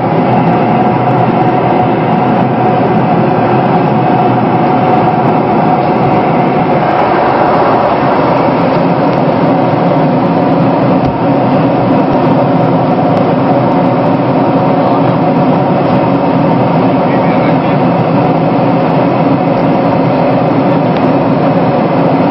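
Loud, steady drone of a Boeing 747's jet engines heard from inside the aircraft, a continuous roar with several steady tones in it.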